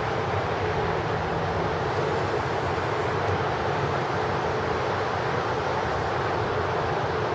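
A steady, even rumble and hiss with no distinct events.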